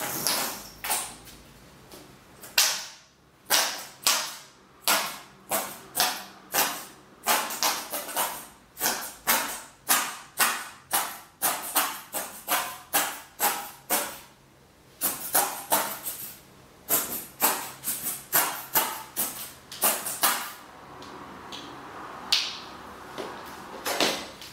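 Quick, repeated strokes of a paintbrush against canvas, about two a second, in an uneven rhythm with a few short pauses.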